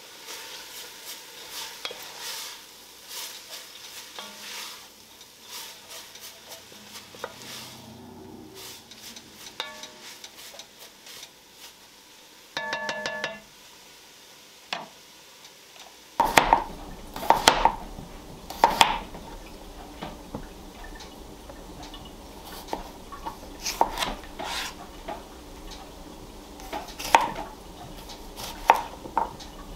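A wooden spoon stirring shredded carrots, shallot and celery in an enamelled cast-iron pot, with a faint sizzle of the vegetables sautéing in butter. About sixteen seconds in it changes to a knife slicing potatoes on a wooden cutting board, a sharp knock with each cut.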